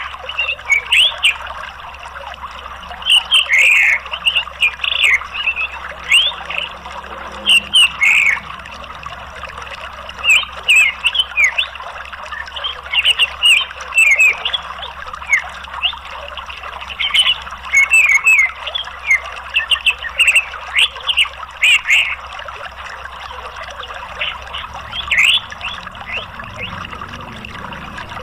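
Orange-headed thrush giving repeated bursts of quick chirps and twitters, with short pauses between the bursts, over a steady sound of running water.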